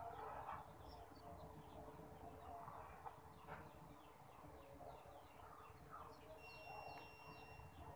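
Faint background chickens clucking and birds chirping, over near-silent room tone. A faint steady high tone sounds for about a second near the end.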